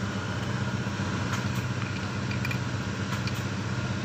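An engine running steadily at idle, a low even hum, with a few faint metallic clicks of a wrench on diesel injector fuel-line fittings.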